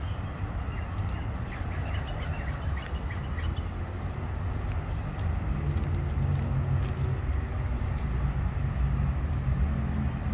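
Small birds chirping and calling over a steady low traffic rumble; the chirps fade after a few seconds as a passing vehicle's engine grows louder.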